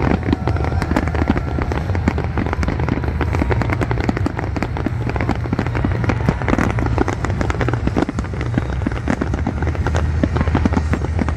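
Aerial fireworks going off in a dense, continuous barrage of bangs and crackling, over a steady low rumble.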